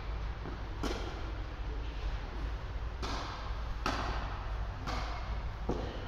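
Tennis ball being struck by rackets and bouncing during a doubles rally: about five sharp pops, roughly a second apart, over a steady background hiss and low rumble.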